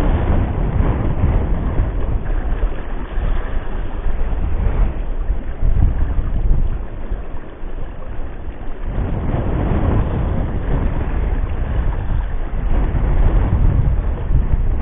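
Wind buffeting the microphone in gusts, a loud low rumble that swells and eases, over the wash of sea waves on the shore.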